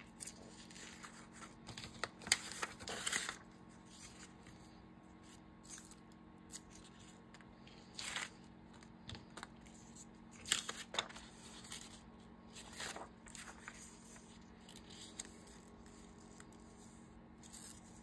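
Paper and craft scraps being handled, with short bursts of rustling every few seconds, over a faint steady hum.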